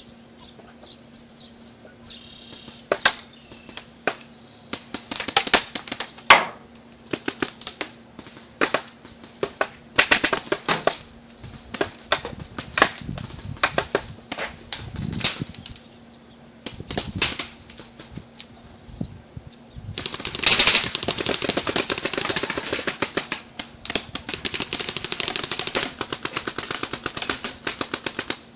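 Paintball markers firing: scattered pops and short volleys, then rapid, nearly continuous firing from about twenty seconds in until shortly before the end.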